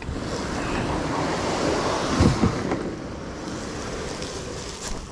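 Plastic sit-on-top kayak hull dragged over pine straw and dry leaves: a steady scraping rush, louder for the first few seconds and easing off after, with a couple of dull thumps a little over two seconds in.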